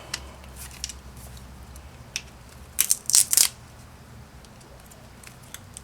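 Rubber being pried and torn off a Flojet water pump's housing: a few small clicks, then a short cluster of sharp tearing crackles about three seconds in.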